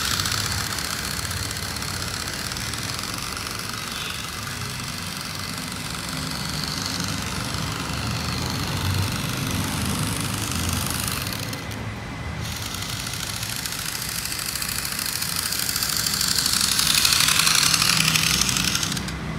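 Radio-controlled 1:18 scale truck chassis driving on a gritty road: a high-pitched electric motor and gearbox whine with tyre noise, loudest as it passes close at the start and again as it comes back near the end, over a steady low rumble.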